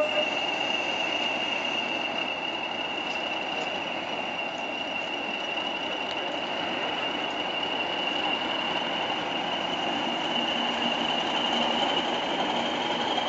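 Class 40 diesel-electric locomotive 40145 running slowly, its English Electric 16-cylinder diesel engine rumbling under a high, steady turbocharger whistle, the sound that earns the class its 'whistler' nickname. The whistle climbs slowly in pitch, and the whole sound grows a little louder near the end.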